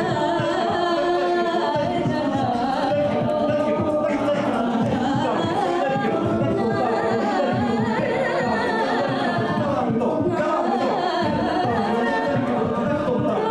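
South Asian fusion a cappella group singing: several voices layered in harmony with no instruments, at an even loudness.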